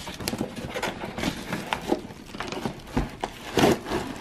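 Cardboard retail box being opened by hand: irregular taps, scrapes and rustles of cardboard flaps and inserts sliding against the plastic-wrapped tray inside.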